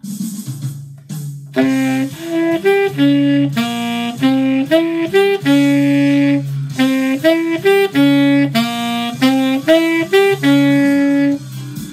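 Saxophone playing a phrase of quick notes that ends on a long held note, then playing the same phrase a second time, over backing music with a steady low part.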